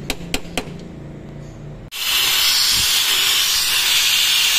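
A few light metal clicks from a screwdriver on a pressure-washer pump's valve caps, then, from about two seconds in, a loud steady hiss of degreaser being sprayed under pressure onto the brass pump manifold to strip the grease.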